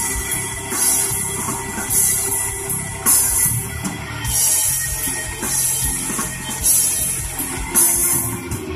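Rock music with drums and guitar playing through a car stereo (Kenwood KDC-100U head unit driving an Art Nouveau AN4.400 amplifier), heard inside the car's cabin, with a cymbal crash about every second.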